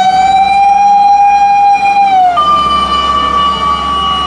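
Fire-engine siren wailing over a steady low hum. It holds one tone, slides down about two seconds in, then jumps to a higher tone and holds it.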